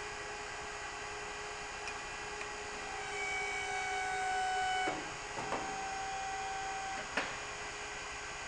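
Hydraulic power unit of a Winton E50 segmented-finger tube end former running with a steady hum. About three seconds in it runs louder for roughly two seconds as the ram strokes to expand a tube end. A clunk follows as the ram is returned, then a couple of sharp clicks.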